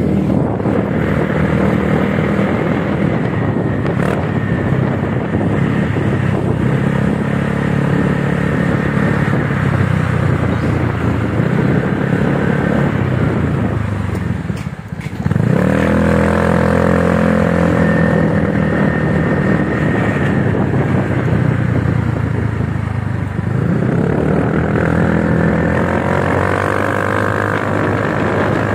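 Honda Scoopy scooter's single-cylinder engine through an aftermarket RRGS Tsukigi racing exhaust, ridden at low speed: a steady exhaust note that rises and falls with the throttle and is not too noisy. About halfway through the note drops away for a moment as the throttle closes, then picks up again.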